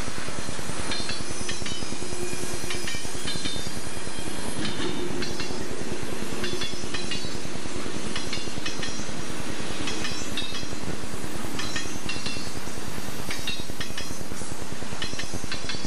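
Freight train of boxcars rolling past close by: a steady rumble and clatter of wheels on the rails, with short high-pitched squeals and clinks scattered throughout.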